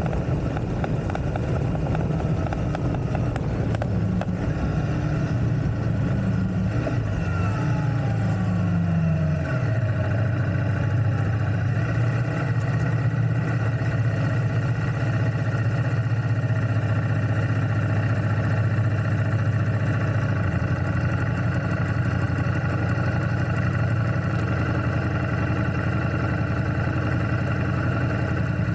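Ducati Multistrada V4S's V4 engine running as the motorcycle is ridden at low speed. Its note falls about nine seconds in, then holds steady.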